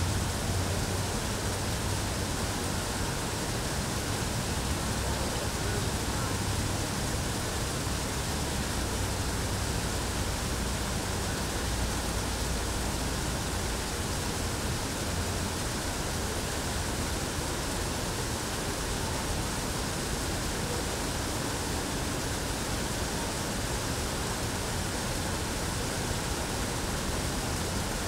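Steady rush of running water, an even hiss across all pitches with a low rumble under it that never lets up.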